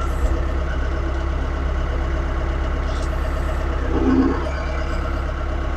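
Mahindra 2638 compact diesel tractor engine running steadily while its front pallet forks are eased forward, growing briefly louder about four seconds in.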